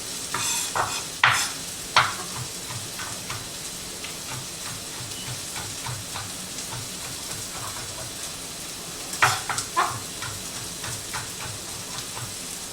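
Knife chopping on a cutting board in a quick, even rhythm, mincing garlic, over onions and peppers sizzling as they brown in a frying pan. A few sharper knocks come near the start and about nine seconds in.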